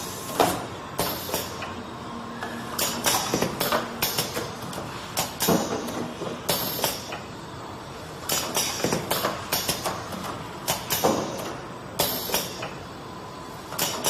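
Automatic rotary cartoning machine for dishwasher-tablet boxes running, with frequent sharp mechanical clacks and knocks coming irregularly and often in quick clusters over a steady machine noise.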